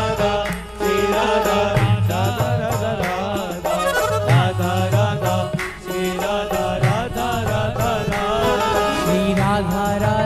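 Background music: a melody over a steady, repeating beat.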